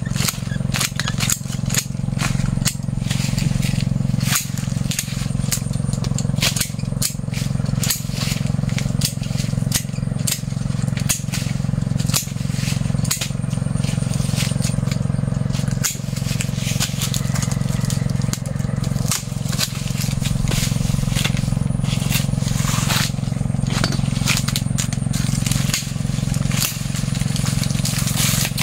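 Hand pruning shears snipping and dry jackfruit branches cracking and rustling as they are cut and handled, in many short clicks and crackles. A steady low engine drone runs underneath throughout.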